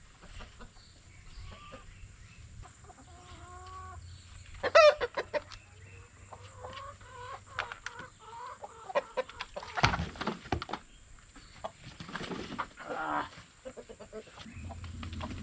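Chickens clucking, with one loud, sharp squawk about five seconds in, then bouts of noisy scuffling and more agitated clucking as birds are chased and grabbed.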